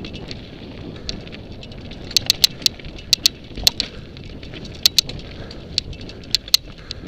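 Mountain bike descending rough dirt singletrack: a steady rumble of tyres on the dirt, with irregular sharp clicks and rattles, some in quick clusters of two to four, as the bike jolts over roots and rocks.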